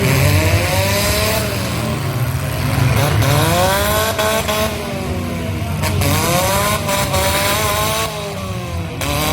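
Demolition derby car engines revving hard, the pitch climbing and dropping again four or five times over a steady low rumble of other engines.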